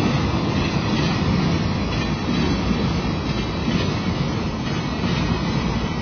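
Flatcars of a freight train loaded with military trucks rolling past, a steady rumble of steel wheels on the rails.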